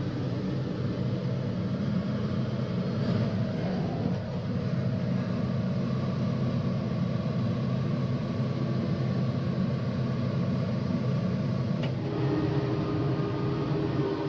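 Tractor engine running steadily under load. A short click comes about twelve seconds in, after which a higher steady hum joins.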